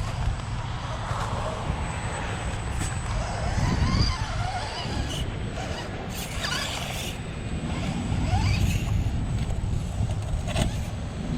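Small electric motor and gears of an Axial SCX24 micro RC crawler whining, the pitch rising and falling with the throttle, with scattered clicks and scrapes as it crawls over rocks, over a steady low rumble.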